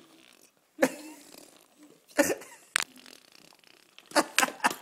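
Baby blowing raspberries, buzzing his lips in short, sudden bursts: one about a second in, two more a little past the middle, and a quick string of them near the end.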